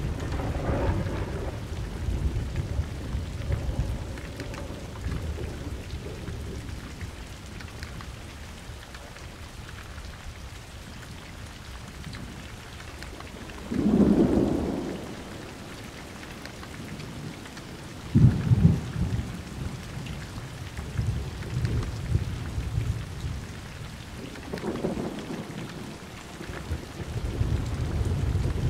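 Steady rain with rolling thunder: low rumbles at the start, a sharp thunderclap about halfway through, then another crack that rolls into long rumbling through the rest.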